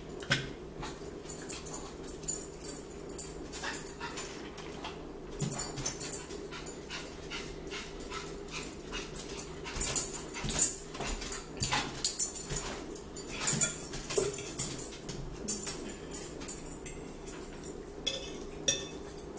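A small dog whining steadily, over close-up eating sounds: forks clicking and scraping on plates and chewing, busiest about ten to fourteen seconds in.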